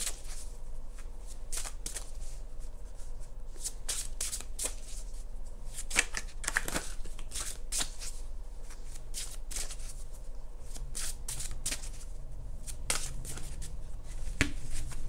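A deck of oracle cards being shuffled by hand: irregular soft rustling with sharp clicks of card edges, a few louder snaps now and then.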